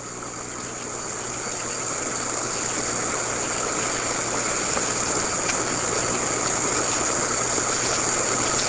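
Burning safety fuse of a homemade match-head PVC detonator, giving a steady hiss that slowly grows louder, with a low steady hum underneath.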